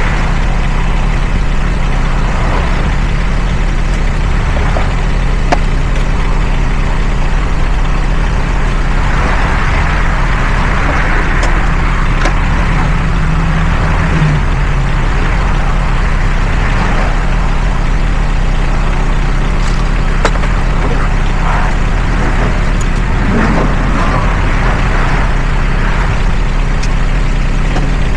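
Engine running steadily at idle, with a few faint light clicks.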